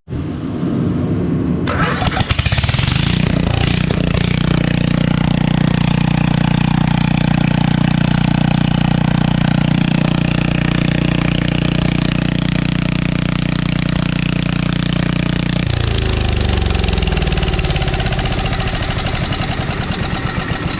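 Small mini bike engine starting up, then running at a steady speed, its crankshaft freshly milled down to fit the clutch. About three-quarters of the way through, its pitch drops and wavers.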